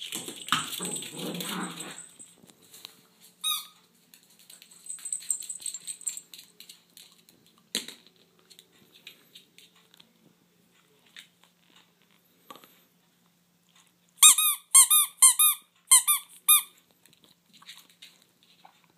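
A rubber squeaky toy squeaking in a quick run of about eight short squeaks, as poodles bite on it. Scuffling and rustling come first, from the dogs tussling on the floor.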